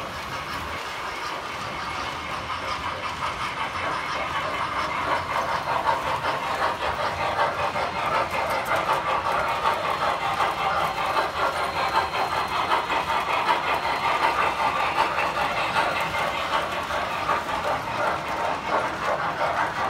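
Standard Gauge tinplate toy trains running on metal three-rail track. The wheels give a steady, fast clattering rumble, which grows louder a few seconds in as a train comes close and then stays steady.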